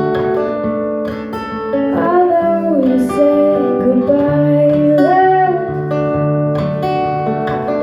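Acoustic guitar strummed with sustained chords between verses of a song, with a voice singing a wordless gliding line over it in the middle.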